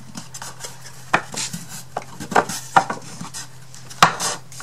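Thin wooden kit pieces knocking and clattering against each other and the table as tabs are pushed into slots, in several separate sharp knocks, the loudest about four seconds in. A steady low hum runs underneath.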